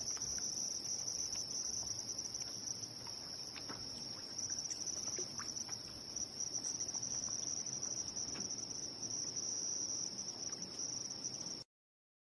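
Crickets chirping in a steady high-pitched trill over a faint low hiss; the sound cuts off suddenly near the end.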